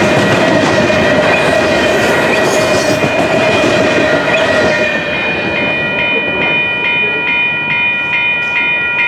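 Canadian Pacific freight train of loaded canola cars rolling past, wheels clattering steadily on the rails. From about halfway through, a ringing sound joins in, struck about twice a second.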